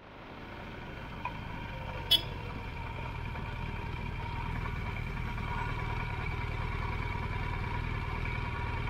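A BMW R1200 boxer-twin motorcycle engine running steadily as the bike rides along, its low rumble slowly growing louder. There is a single sharp click about two seconds in.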